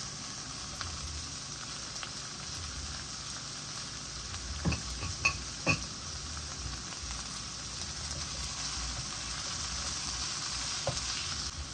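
Chopped bell peppers, onions and sun-dried tomatoes sizzling steadily in hot avocado oil in a frying pan, with three light clicks a little before halfway through.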